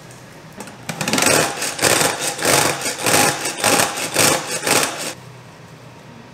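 Pull-cord salad spinner with a stainless steel bowl whirring in a quick rhythm of about seven pulls, spinning salad leaves dry; it starts about a second in and stops about five seconds in.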